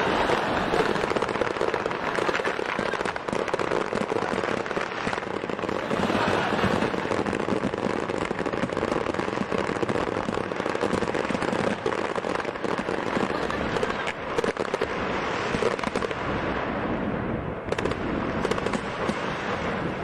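A whole firework display going off at once: a dense, continuous barrage of bangs and crackling from many fireworks igniting together, thinning out in the last few seconds. A technical hitch set off a display meant to last half an hour in under a minute.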